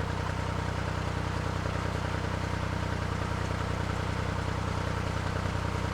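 Narrowboat engine running steadily under way: an even, unchanging low hum.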